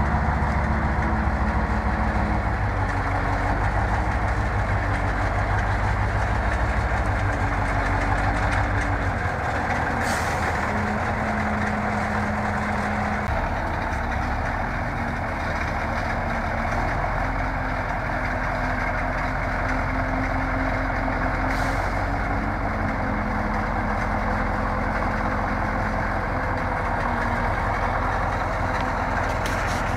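KrAZ logging truck's diesel engine labouring as the truck crawls through deep mud ruts, the engine note stepping up and down a few times. Two brief hisses come about ten and twenty-one seconds in.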